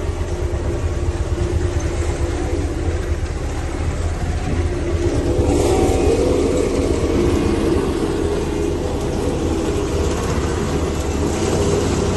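A heavy engine running steadily, with a low drone that grows a little louder about six seconds in.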